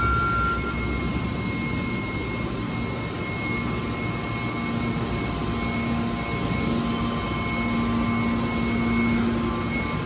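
Hydraulic metal baler's power unit running steadily: an even machine hum with a faint high whine, and a lower tone that comes in and grows stronger from about halfway.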